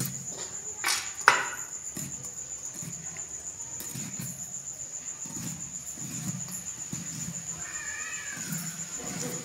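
Raw bitter gourd being sliced by hand against a boti, a fixed upright floor blade: crisp cutting, with two sharp clicks about a second in, over a steady high-pitched tone. A brief pitched call that rises and falls, like an animal's, near the end.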